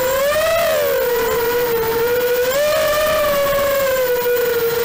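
Racing quadcopter's brushless motors (Emax 2204 2300 kV with three-blade 5045 props) whining, heard from on board the quad. The pitch rises and falls with the throttle: it climbs about half a second in, dips, climbs again a little past halfway, then eases down near the end.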